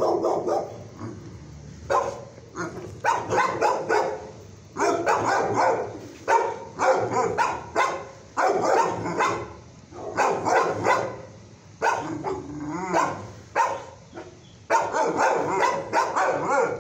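Shelter dogs barking in bursts of several quick barks, a new burst every second or two.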